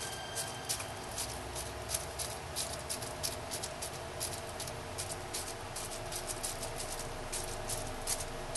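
Bubble wrap being pressed and smoothed with rubber-gloved fingertips onto soft soap in a silicone mold: quick, irregular light crinkling clicks, several a second.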